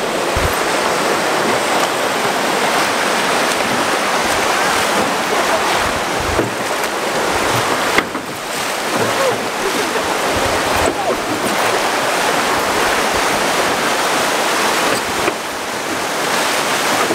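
Whitewater rapids rushing and splashing around a rowed drift boat as it runs down through them, a steady loud roar of broken water.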